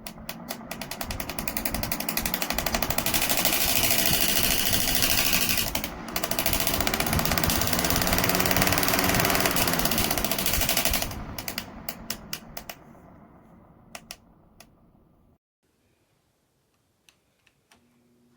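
Pelonis 20-inch box fan running with a fast, loud rattling clatter, which thins into slower separate ticks and stops about fifteen seconds in, as though spinning down.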